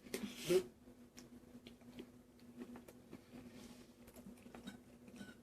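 Eating sounds: a person chewing a mouthful of pasta, with small wet clicks and soft mouth noises. A short hissing rush, the loudest sound, comes in the first half-second, and a faint steady hum lies under it all.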